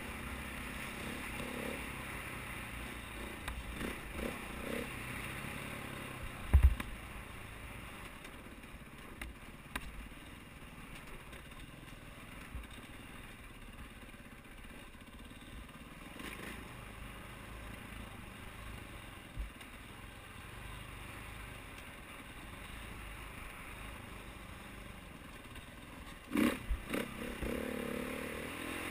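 KTM 450 XC-W dirt bike's single-cylinder four-stroke engine running as the bike is ridden over a rough dirt trail, with clatter from the bike. A sharp low thump about six seconds in and a burst of knocks near the end.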